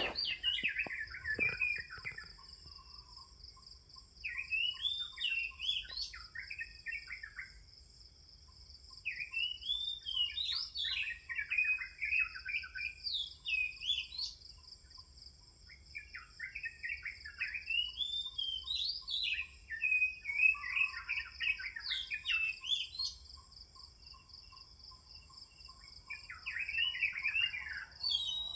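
Oriental magpie-robin (kacer) singing: bouts of quick, varied whistled phrases, several seconds each, separated by short pauses. A steady high insect drone runs underneath.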